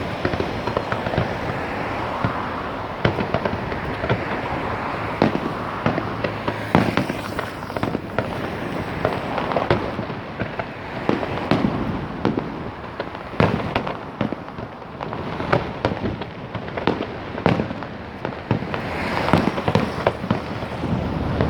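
Fireworks going off in a rapid, irregular series of bangs and pops over a steady rumble of echoing blasts.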